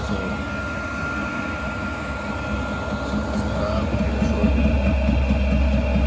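Chinese diesel air heater running on high: a steady low rumble from its burner and blower fan, with a thin high whine that stops a little past halfway.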